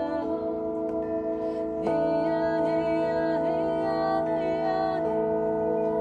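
A set of tuned flat metal bell plates, hanging in a frame, struck with mallets: long overlapping tones ring on together, with new strikes near the start, about two seconds in and about five seconds in. A wordless voice slides up and down in pitch over the ringing.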